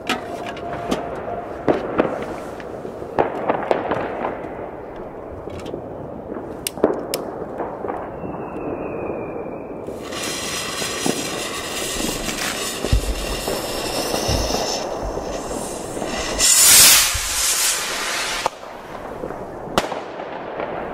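Scattered firecracker and firework bangs all around. A Weco Hawk skyrocket launches with a loud rushing hiss lasting about a second and a half, some 17 seconds in.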